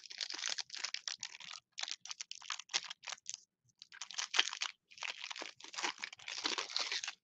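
Plastic wrapper of a Panini Mosaic football card pack crinkling as the pack is torn open and the cards pulled out. It comes as a rapid, irregular run of crackles with a few short pauses.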